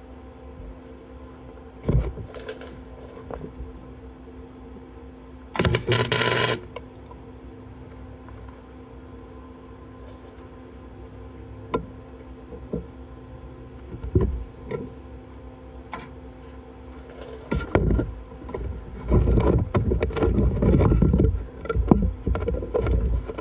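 Welding: a welding machine hums steadily. There is a short burst of arc about six seconds in, and near the end comes a run of irregular crackling arc bursts and knocks.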